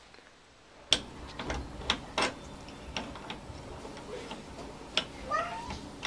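Scattered clicks and knocks of hands working at a refrigerator's plastic water line and its fitting, starting with a sharp click about a second in. Near the end comes a short rising call.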